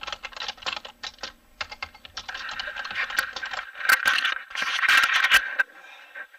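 Leaves and branches brushing and crackling against clothing and the camera as someone pushes fast through dense brush: a busy run of quick rustles and snaps that stops about a second before the end.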